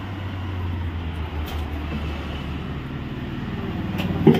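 A motor running steadily with a low, even hum, and a brief louder sound near the end.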